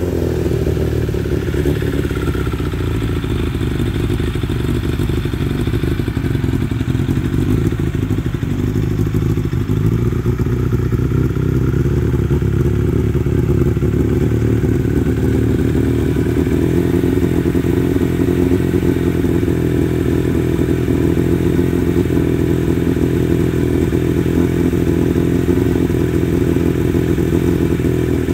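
Suzuki Bandit's inline-four engine idling steadily through an aftermarket Devil exhaust silencer.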